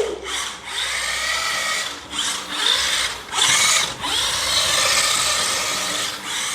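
Toy RC car's motor and gears whining in bursts as the throttle is applied and released, with short drops between the bursts.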